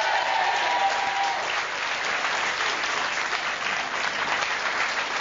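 Studio audience applauding steadily as a guest is welcomed on.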